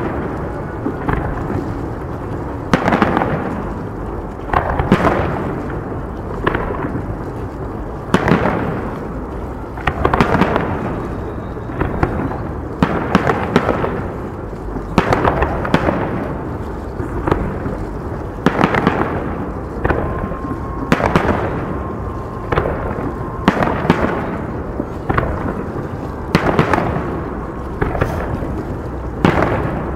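Aerial fireworks shells bursting in a steady series, more than twenty bangs about one every second or two, each followed by a rolling echo that dies away.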